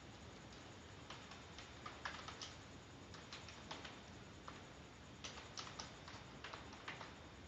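Faint typing on a computer keyboard: irregular keystrokes, some in quick runs and others separated by short pauses.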